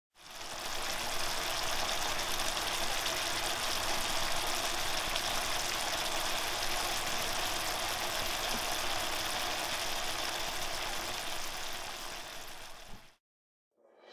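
Thick egg masala gravy simmering in a pan: a steady bubbling, sizzling hiss that fades in at the start and fades out about a second before the end.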